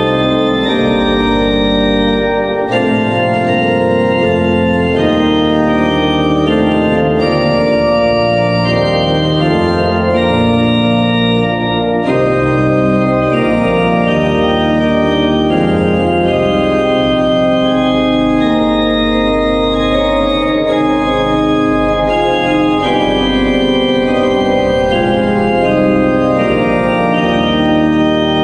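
Organ music: slow, sustained chords over a moving bass line, changing every second or two.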